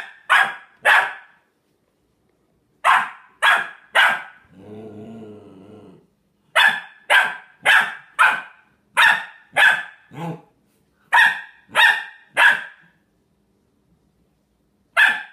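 Three-month-old Australian Shepherd puppy barking in quick runs of short, sharp barks, with a low growl about four and a half seconds in and a pause near the end.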